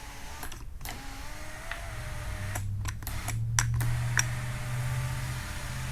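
Cadillac SRX panoramic sunroof's electric drive motor running as the glass panel slides back: a steady low hum that starts about two seconds in, with a few sharp clicks from the switch and mechanism.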